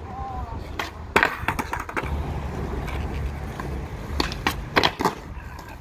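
Skateboard on concrete: a few sharp clacks of the board's tail and deck striking the ground about a second in, then the wheels rolling, and another cluster of sharp clacks around four to five seconds in, the pop and slap of a backside 180 kickflip attempt.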